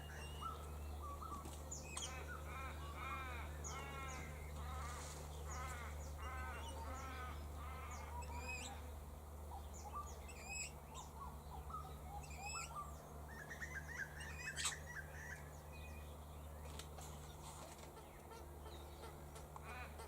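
Australian king-parrots calling: runs of short arched chirps with a few sharper, higher calls, over a steady low hum.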